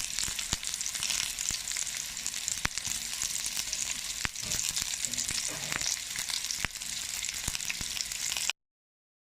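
Chicken tikka pieces sizzling on a hot tawa, a steady frying hiss with scattered sharp pops and crackles. The sizzle cuts off suddenly shortly before the end.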